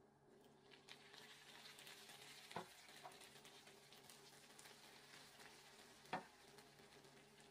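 Cold sugar syrup ladled onto hot, freshly baked walnut baklava, sizzling as it hits the pastry; the sizzle starts about a second in and slowly fades. Two sharp metal clinks stand out, about two and a half and six seconds in.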